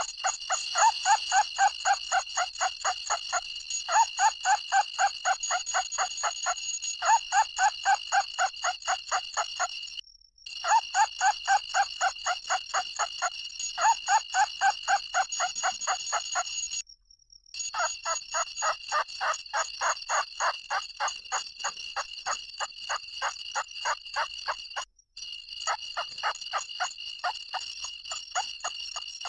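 Field-rat lure call: a rapid chattering trill of squeaks, in runs of about three seconds with short breaks, over a constant high-pitched ringing. The sound cuts out briefly three times.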